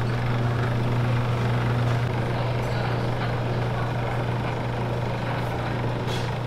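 Electric noodle-cutting machine running: a steady low motor hum over an even whirring rush as a sheet of dough is fed through its rollers and cut into noodles.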